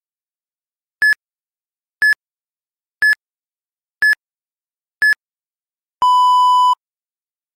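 Interval-training timer countdown: five short high beeps one second apart, then one longer, lower beep, the signal to switch to the next interval.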